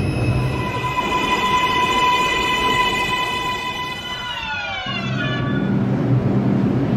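NYC subway R142/R142A train's electric propulsion whining in several steady tones that glide down in pitch about four seconds in as the train brakes to a stop. A low steady hum takes over about five seconds in.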